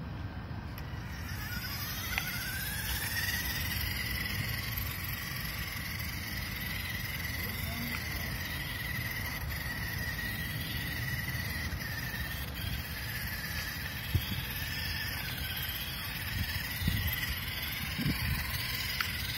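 Small autonomous RC truck driving on pavement: a steady whine from its electric drive motor and gears that rises in pitch a couple of seconds in as it speeds up and then holds, over a low rumble, with a few light knocks near the end.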